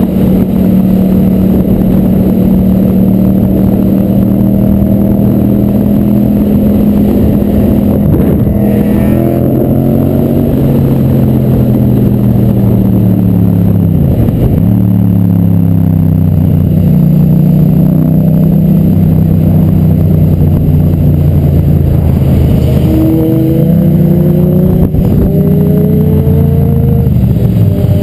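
Motorcycle engine running hard at high revs, loud and continuous, its pitch dropping sharply and climbing again a few times, with one clear dip about halfway through and another near the end, as it changes gear and speed.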